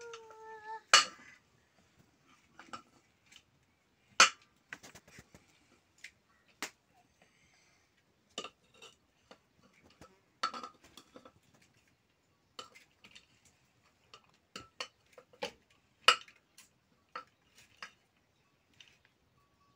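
A metal spoon knocking and scraping inside a metal cooking pot, with irregular separate clinks. The loudest come about a second in and again around four, ten and sixteen seconds.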